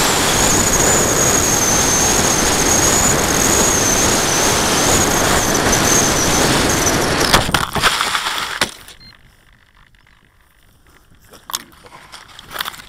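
Onboard audio of an FX-61 flying wing at full speed just above the ground: wind rush with the electric motor and propeller's steady high whine, cut off by a few knocks as the plane crashes about seven seconds in. Then it goes quiet, with footsteps crunching in dry grass near the end.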